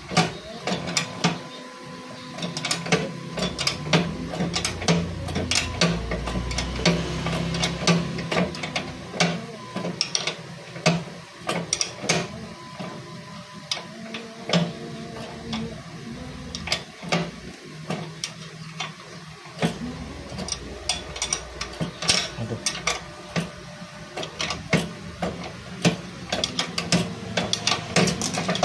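Hand ratchet wrench clicking in quick runs, with metal clinks, as the side-stand pivot nut of a Honda PCX 150 is unscrewed.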